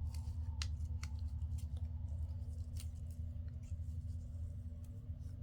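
Paper pieces being handled and set down on a craft table: scattered light clicks and rustles over a steady low hum.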